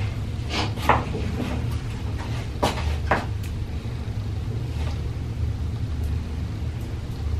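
A plastic spray bottle being handled, giving two quick pairs of short sharp sounds in the first few seconds, over a steady low rumble.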